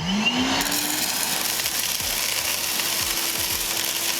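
Milwaukee M12 Fuel cordless wet/dry shop vac's brushless motor switching on at its low setting, its whine rising over about a second and then running steadily with a rush of air, while pea gravel rattles up the hose.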